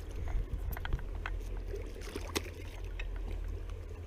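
A hooked rainbow trout splashing and thrashing at the water's surface as it is held on the leader, giving a string of short sharp splashes over a steady low rumble.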